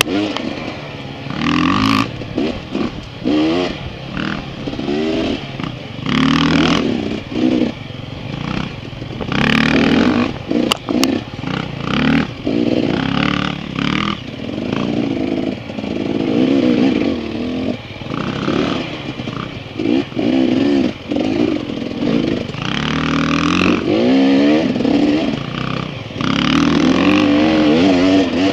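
Dirt bike engine being ridden along a rough trail, revving up and dropping back over and over, its pitch rising and falling with the throttle.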